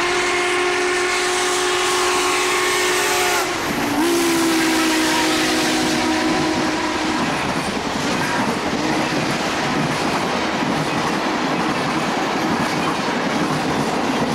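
Southern Pacific 4449, a 4-8-4 steam locomotive, blows two long blasts on its steam whistle, a chord of several tones at once, the second starting about a second after the first ends. Then comes the steady rumble and wheel clatter of its passenger cars going by at speed.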